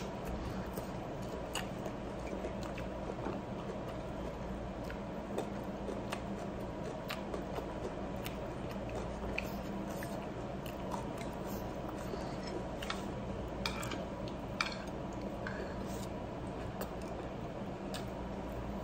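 A person chewing food close up and eating rice with her fingers, with faint mouth clicks and smacks scattered through, over a steady low room hum.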